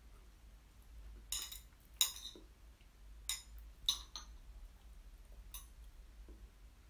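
Metal chopsticks clinking against a ceramic bowl while gathering noodles: about five sharp clinks spread over a few seconds, the second and fourth loudest.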